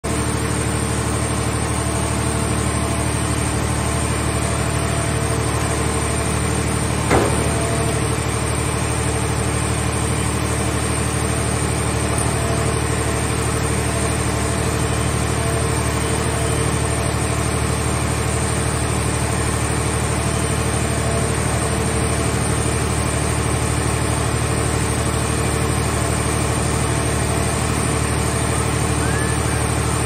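Portable car baler's hydraulic power unit running at a steady drone while its grapple arm works, with one sharp knock about seven seconds in.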